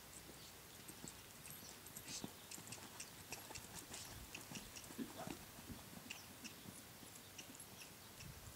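Faint hoofbeats of a horse cantering and trotting on soft sand arena footing: an irregular patter of short ticks and soft thuds.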